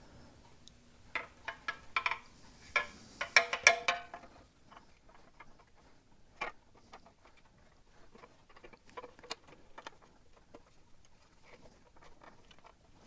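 Small clicks, knocks and scrapes of metal clamp brackets and a mudguard being handled and pushed onto rubber mounts on a motorcycle fork stay, busiest in the first four seconds, then only scattered light ticks.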